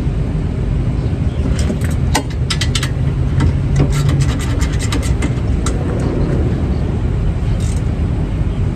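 A ratchet wrench clicking in quick runs about two to five seconds in, as the bottom brake caliper bolt is tightened, over a steady low rumble.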